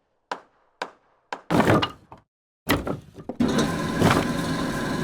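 A few short, sharp thunks and knocks, one longer and louder, then from about three and a half seconds in a dense, steady sound with sustained tones.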